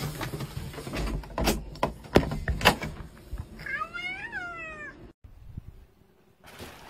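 A door being opened, with a few sharp clicks and knocks, then a house cat gives one meow of about a second, rising then falling in pitch, as a greeting at the door.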